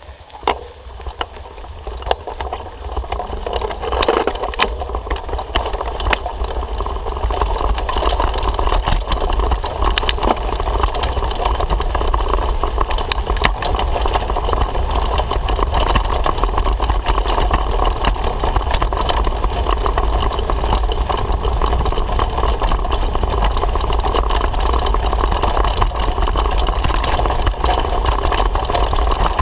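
Bicycle riding fast over a grassy path: wind rushing over the camera microphone and tyres rumbling, with rattles and knocks from the bike over the first few seconds. The noise grows louder for several seconds as the bike picks up speed, then holds steady.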